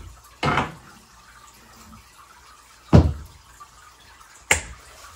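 Cowling of a Nissan 40 hp two-stroke outboard being set back onto the powerhead: a knock about half a second in, a heavier thud about three seconds in, and a sharp click about a second and a half later as the cover is pressed down into place.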